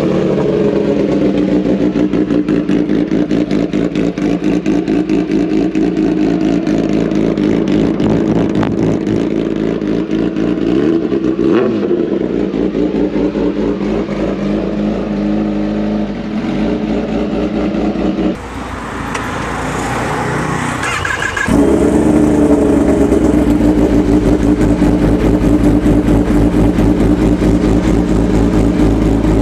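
Kawasaki ZX-10R's inline four-cylinder engine with an aftermarket full-system exhaust idling steadily after being started. About two-thirds of the way through it revs briefly, rising and falling, then settles back into a louder idle.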